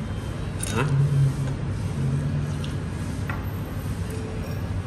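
Restaurant dining-room background: a steady low hum and murmur, with a light click about a second in and a few fainter ticks after.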